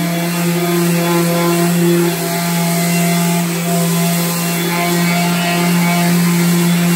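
Electric rectangular-pad orbital sander on a dust-extraction vacuum hose, running steadily with a constant motor hum as it is pushed over a cabinet door, sanding the old dark finish down to the wood.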